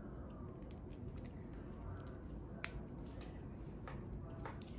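Hands handling a nylon webbing dog harness: faint rustling and scattered light clicks from its metal ring and hardware, with one sharper click a little past halfway, over a low steady hum.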